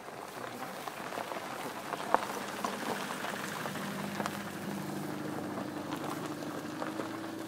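Dry grass and leaf litter crackling and rustling as people crouch and work on the ground, with one sharp snap about two seconds in. A steady low hum joins from about four seconds in.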